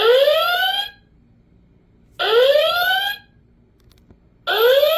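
Motion-activated Star Trek Enterprise door-chime novelty unit sounding its electronic chime again and again: three rising, whistle-like tones, each about a second long and about two seconds apart.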